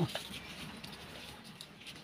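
A single chopping knock of a sickle blade on garlic greens at the very start, then faint rustling and light clicks as the stalks are handled against the blade.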